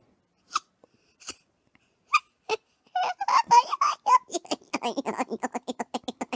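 A young girl laughing: a few short sounds at first, then about three seconds in a long run of quick, rhythmic giggles.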